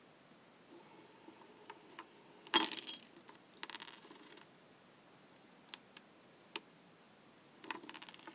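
Metal fidget spinners handled and set down on a wooden tabletop: a sharp clack about two and a half seconds in with a short rattle after it, then a few light clicks and another brief metallic jingle near the end.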